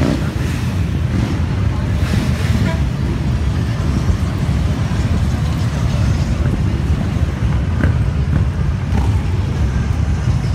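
A convoy of motorcycles, cruisers and sport bikes, riding past one after another, their engines making a continuous deep rumble.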